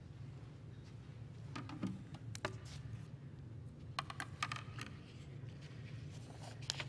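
Quiet room tone: a steady low hum with scattered light clicks and rustles, grouped about two seconds in and again about four seconds in.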